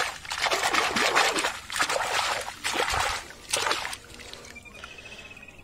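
Water splashing and running over a toy motorbike as it is washed, coming in several loud bursts and dying down about four seconds in.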